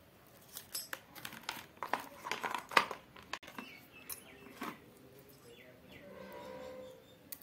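Hands handling the parts of an opened Pigeon induction cooktop during reassembly: a run of small clicks, taps and rustles of wires and plastic casing parts, busiest in the first half and then dying down.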